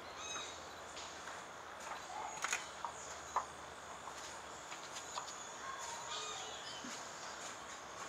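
Forest ambience with several birds giving short whistled calls and chirps over a steady insect-like hiss. A few sharp taps come about halfway through.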